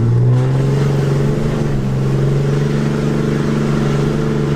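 2017 Ram 2500's 6.7-litre Cummins turbo-diesel pulling under heavy throttle, its engine note rising and then holding at a steady pitch.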